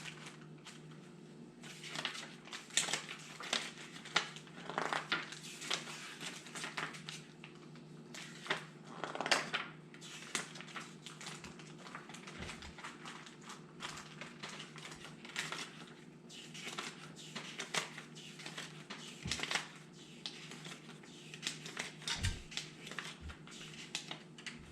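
Crinkling and rustling of packaging being handled, with irregular small clicks and rustles throughout over a steady low hum.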